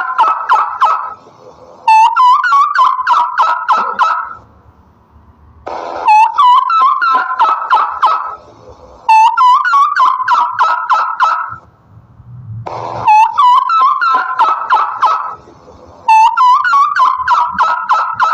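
Turkey gobbling over and over: a fast rattling gobble about two and a half seconds long, repeated roughly every three and a half seconds.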